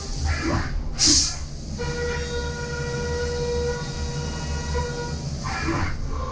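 Brother Speedio W1000Xd2 CNC machining centre milling aluminium with a carbide end mill under flood coolant: a steady whine of several tones over the rush of coolant. About a second in, a short loud hiss breaks in. A new, steadier whine then sets in as the next end mill cuts.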